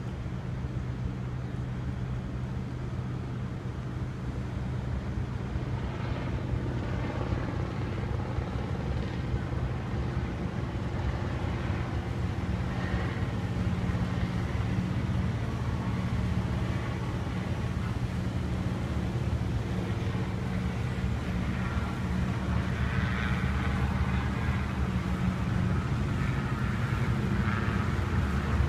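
Boat engines running on the river: a steady low drone that slowly grows louder toward the end as a motor cruiser comes up close.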